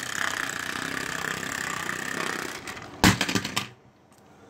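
Motorized Thomas & Friends toy train whirring steadily, its small electric motor and gears buzzing as it runs along plastic track. About three seconds in comes a short clatter of plastic knocks, and then the whirring stops.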